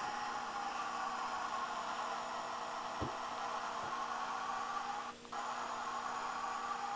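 Model diesel switcher sound from an MRC 1662 sound decoder playing through a small speaker in an N scale sound boxcar: a steady, hissy engine sound that briefly drops out a little after five seconds. Two light knocks come about three and four seconds in.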